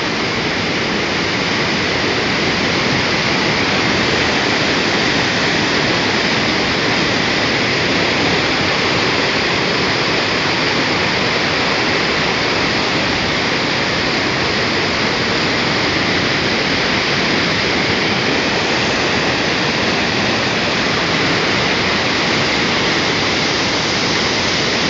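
Waterfall: a large cascade of water pouring down, a steady loud rush with no break.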